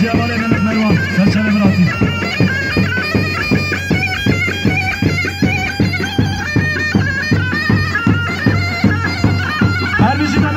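Live folk dance music for a line dance: a shrill, reed-like melody with quick ornaments over a steady low drone, driven by a regular drum beat.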